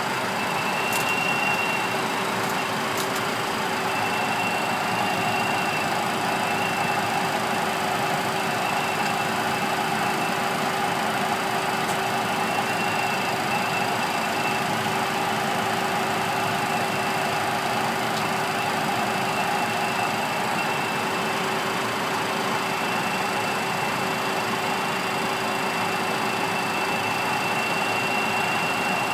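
Steady flight-deck noise of an airliner in a climb: the rush of air past the cockpit and the drone of engines and systems, with a steady mid-pitch hum and a faint high whine that comes and goes.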